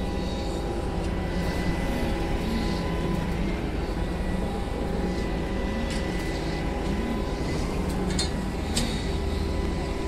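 Steady drone of a running engine, with a faint regular pulse about once a second and a few light clicks near the end.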